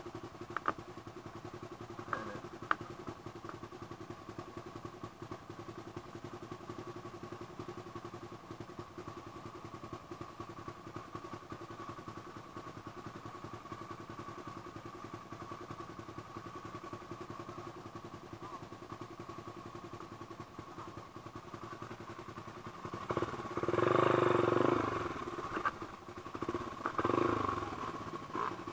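Trail motorcycle engine running steadily at idle, with a few light clicks near the start, then revved up hard near the end and blipped once more a few seconds later.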